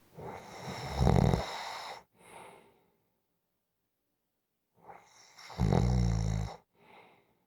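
A sleeper snoring: two rattling snores about five seconds apart, each followed by a short, softer breath.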